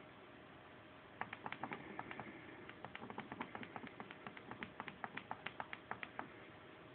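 A quick run of small plastic clicks from a Viewsonic G-Tablet's hardware button, pressed over and over to step the highlight down the ClockworkMod Recovery file menu. The clicks start about a second in and come about three to four a second, stopping shortly before the end.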